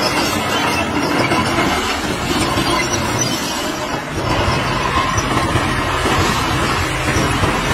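Heavy earthmoving machinery at work: diesel engines running with a loud, steady rumble.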